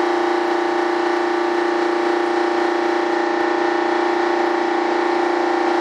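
Steady machine hum with a constant pitched whine, running without change.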